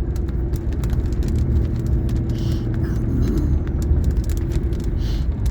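Car cabin noise while driving: a steady low road rumble with a steady hum, and scattered faint clicks.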